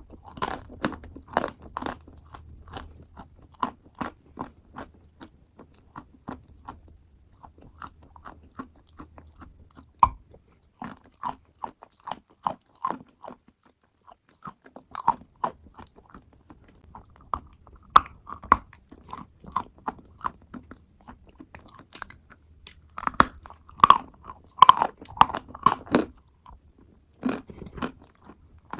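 Close-miked chewing and biting of clay paste and wet clay: irregular crisp crunches and crackles in clusters, loudest in a burst about three-quarters of the way through.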